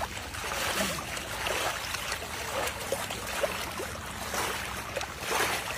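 Muddy pond water sloshing and splashing as people wade chest-deep and drag a woven basket sieve through it, sifting makhana (fox nut) seeds from the pond bed.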